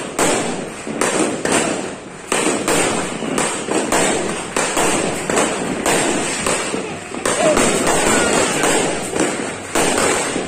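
Aerial fireworks going off in a rapid barrage: sharp bangs two or three a second, each fading out just as the next one hits.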